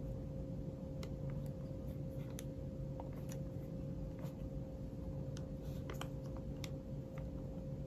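Light, irregular clicks and taps of fingers and nails on a glass screen protector and its plastic alignment frame, about ten in all, over a steady low electrical hum.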